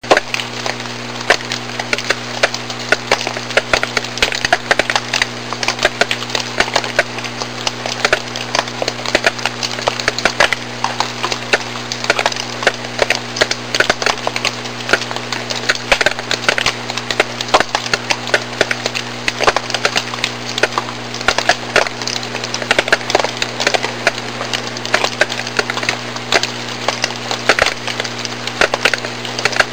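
Dense, irregular crackling over a steady low electrical hum.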